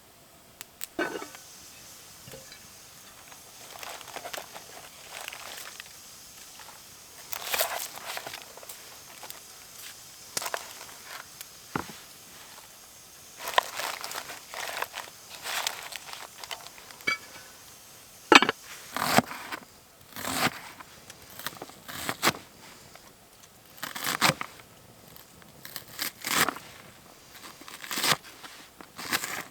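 Irregular crunching and rustling with sharp cracks, sparse at first and busier through the second half.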